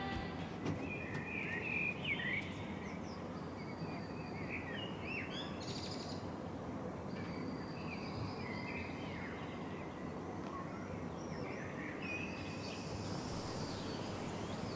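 Outdoor ambience: a steady background hiss with small birds chirping on and off throughout.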